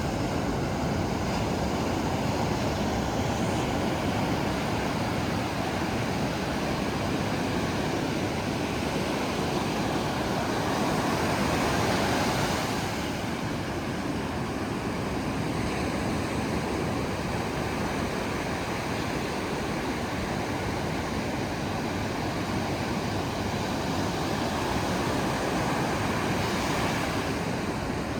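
Ocean surf washing in steadily, swelling louder about twelve seconds in and again near the end.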